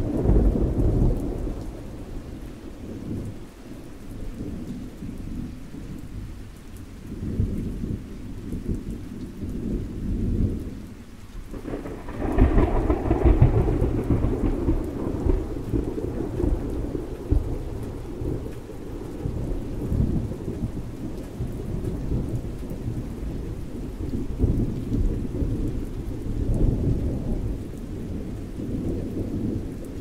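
Rain falling with thunder rumbling through it, the loudest peal about twelve seconds in.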